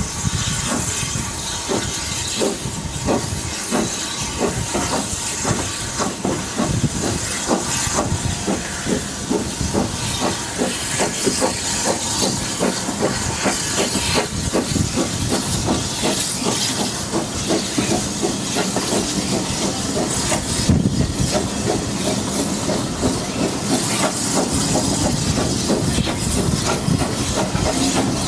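Steam-hauled passenger train running, heard from a carriage window: a steady rushing hiss with a quick, regular beat from the locomotive and wheels.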